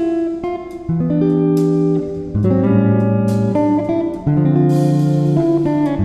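Background instrumental music: sustained pitched notes with sharp plucked onsets, the chords changing every second or so.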